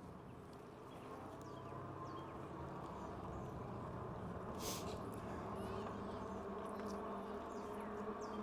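Mokwheel Basalt 2.0 fat-tire e-bike's hub motor humming steadily under way, slowly getting louder, with faint bird chirps and a brief rustle about halfway through.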